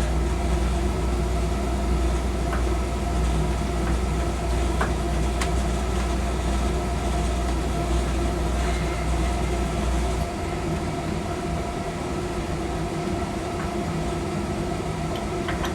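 Steady machine hum made of several held tones, with a deep rumble underneath that drops away abruptly about ten seconds in; a few faint clicks over it.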